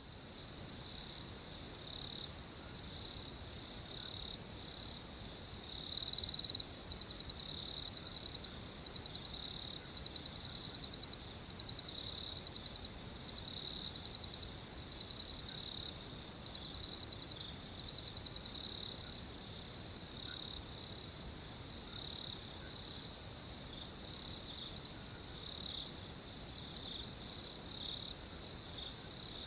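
Crickets chirping in high-pitched, pulsing trills about a second long with short gaps between them. One cricket sounds louder and closer about six seconds in, and again briefly near twenty seconds.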